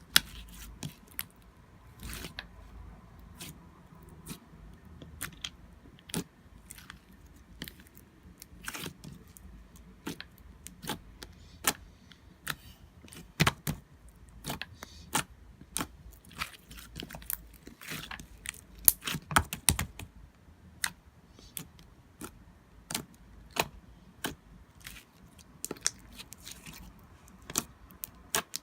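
Slime being squished and pressed by hand, making many irregular sharp clicks and pops in quick succession.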